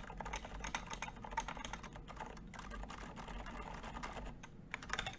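Fast two-handed typing on a custom Exent mechanical keyboard with tall SA-profile keycaps: a dense, steady run of keystroke clacks, with a couple of brief pauses.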